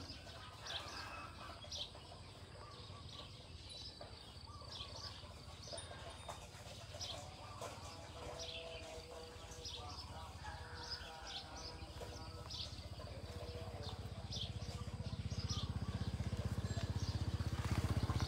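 Small birds chirping, with many short high calls scattered throughout. Over the last few seconds a low rumble builds up and becomes the loudest sound.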